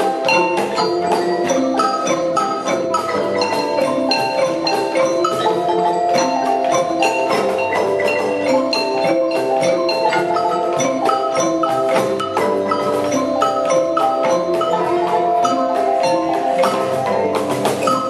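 An ensemble of children's marimbas playing a lively mallet tune of many struck wooden notes, with a cajon box drum keeping the beat underneath.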